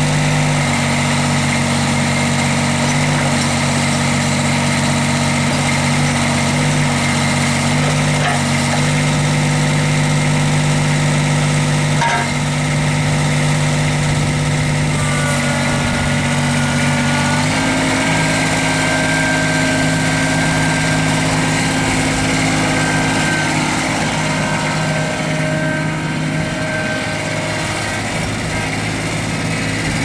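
Kubota B2630 compact tractor's three-cylinder diesel engine running steadily as the loader-backhoe tractor drives along. The engine note shifts slightly a little past the halfway point, and a faint high whine comes and goes in the second half.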